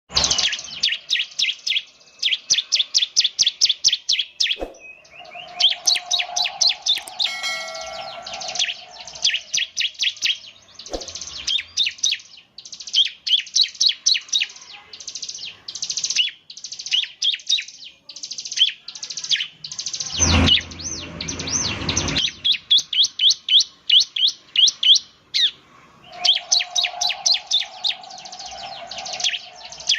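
Bar-winged prinia singing energetically: phrase after phrase of rapid, high, repeated chip notes, many to the second, with short pauses between runs. About two-thirds of the way through, a brief burst of low rumbling noise cuts across the song.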